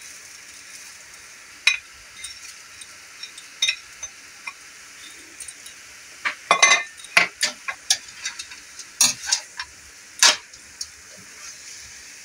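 Metal tongs clink and scrape against a plate and an aluminium wok as crisp fried dried anchovies are pushed in and stirred through jackfruit, with a faint steady sizzle from the pan underneath. The clinks come irregularly, thickest a little past the middle.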